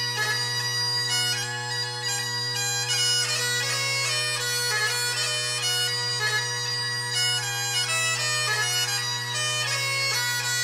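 Great Highland bagpipe playing a tune: a steady low drone throughout, with the chanter moving quickly from note to note above it.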